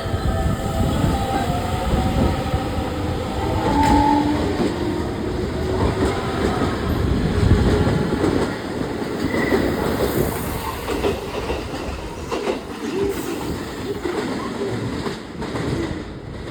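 Electric train running along the station platform, a heavy rumble that is loudest about halfway through and then fades, with a few sharp knocks near the end.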